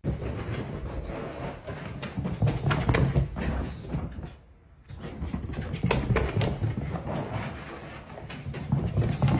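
A pomsky dog racing around on the zoomies: an irregular run of thuds and scrabbling as it leaps on and off a sofa and tears across rug and carpet, with a quieter spell about halfway through.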